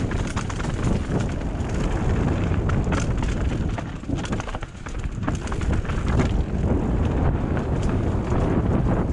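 Enduro mountain bike running without its chain, descending a rough rocky dirt trail: tyres rumbling and crunching over stones and roots, with a constant clatter of sharp knocks and rattles from the bike. It eases briefly about halfway through.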